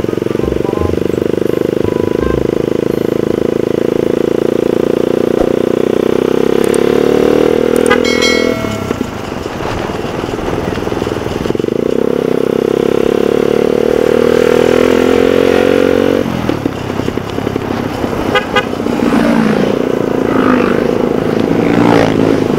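Suzuki Satria FU's single-cylinder engine under acceleration, its pitch climbing steadily, dropping away when the throttle closes about eight seconds in and again around sixteen seconds, then pulling again. A vehicle horn toots briefly about eight seconds in.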